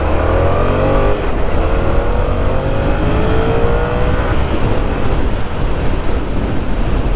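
Yamaha motorcycle engine accelerating under a rider and passenger: the pitch rises, drops at a gear change about a second in, and climbs again until about four seconds in. After that it settles into a steady rush of wind and road noise.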